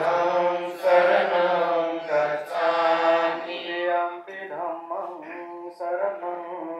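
Chanting voice holding long, drawn-out notes in a slow, steady recitation with brief breaks between phrases.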